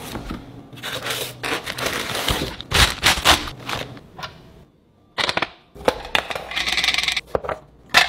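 Handling noises of packaging and hard parts: a string of clicks, knocks and short rattles as a boxed mixer attachment is handled and the metal hub cover is taken off a KitchenAid stand mixer. There is a brief gap about halfway through, and a longer scratchy rattle near the end.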